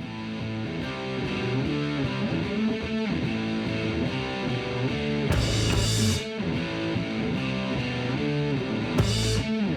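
Instrumental music led by a distorted electric guitar playing a run of changing notes, with two short crashes, one about halfway through and one near the end.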